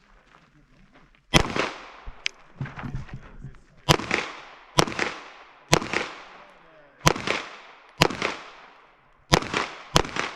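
Eight single gunshots, each a sharp crack with a long echoing tail, spaced roughly a second apart, from a handgun or pistol-calibre carbine fired at targets on a practical shooting stage.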